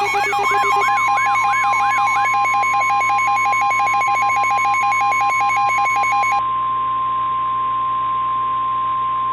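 NOAA Weather Radio warning alarm tone: a steady single tone near 1050 Hz, starting about half a second in. For the first several seconds it is layered with a busier electronic alert sound of fast rising chirps and pulsed beeping, which stops about six and a half seconds in.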